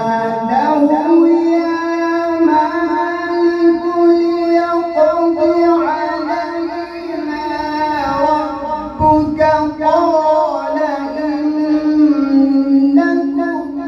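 A man reciting the Quran in melodic tartil style, drawing out one long phrase in held, ornamented notes. The pitch steps down a little near the end.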